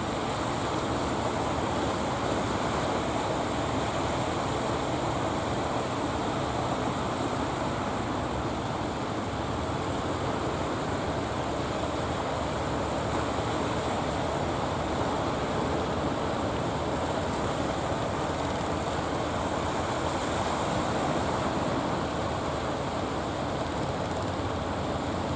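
Steady rush of surf and wind at the sea's edge, with the engines of fishing boats running beneath it as they come in through the channel mouth.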